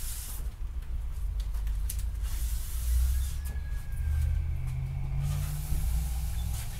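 Vinyl pinstripe tape being unrolled and handled along a car body, giving stretches of hissing rustle, over a steady low rumble.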